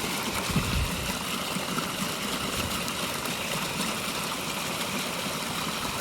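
Water from a backyard pondless waterfall pouring steadily over its rocks and splashing into rapids at the bottom. It has a strong, full rush, with the flow kept on the rock bed by newly added foam.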